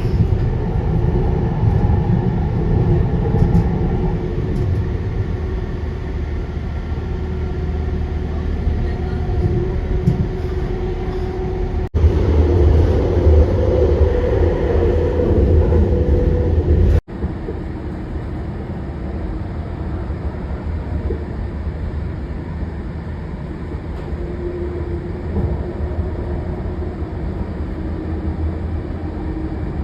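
Aircraft engines running steadily with a deep rumble and a held hum, across three clips joined by abrupt cuts about twelve and seventeen seconds in.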